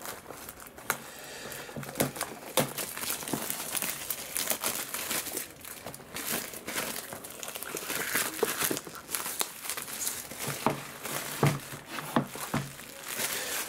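Plastic wrapping being torn and crinkled off a boxed model locomotive: steady crackling with sharp snaps now and then.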